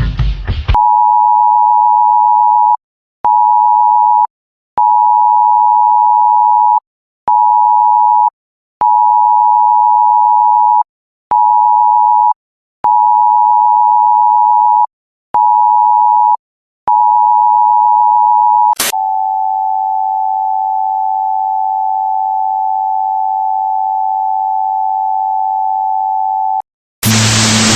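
Loud electronic two-tone alert signal, in the style of the Emergency Alert System attention tone, pulsing on and off in alternating long and short beeps, nine in all. Then a click and a slightly lower two-tone held steady for about eight seconds, cut off suddenly. A burst of static comes at the very end.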